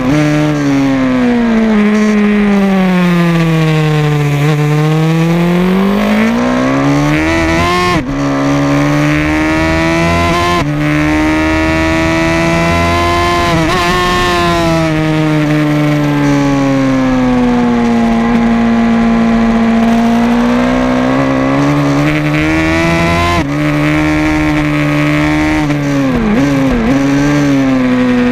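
Race motorcycle's engine heard from onboard while lapping a circuit. The revs sink slowly and climb again several times, with the engine note breaking off briefly a few times.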